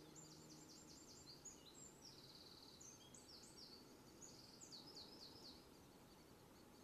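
A songbird singing faintly: quick runs of high, falling notes, with a short buzzy trill about two seconds in, the song ending about five and a half seconds in.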